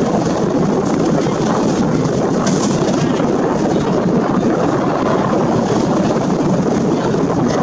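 Steady, unbroken rumble of a moving harbour ferry: engine and water noise carried through the hull, with no distinct events.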